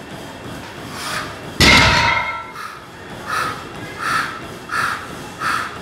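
A 140 kg plate-loaded barbell is lowered from a deadlift and lands on the floor about one and a half seconds in, with a heavy thud and a clang of the iron plates. It is followed by short, evenly spaced puffs of breath, about one every 0.7 seconds, as the lifter braces for the next rep.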